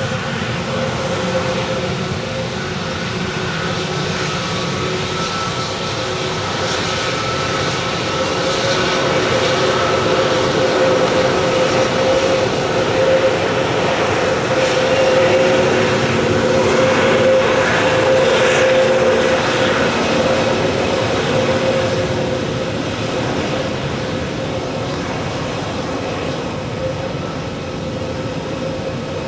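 Airbus A320neo's geared turbofan engines running with a steady hum, growing louder toward the middle and easing off again toward the end.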